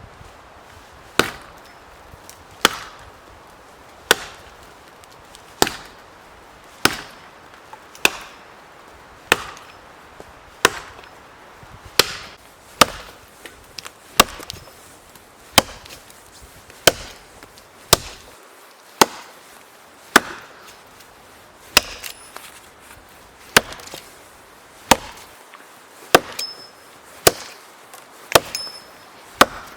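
Firewood being chopped: sharp, evenly paced blows of a blade into wood, about one every second and a half, coming a little closer together near the end.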